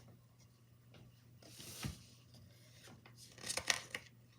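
Paper and a book being handled: a rubbing, rustling swell with a soft thump about halfway through, then a quick cluster of scratchy clicks near the end.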